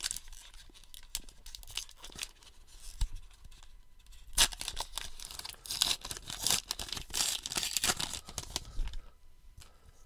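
A 2023 Topps Archives baseball card pack wrapper being ripped open and crinkled by hand. The crackles and rips are faint at first, then come thick and loud in the second half before dying away near the end.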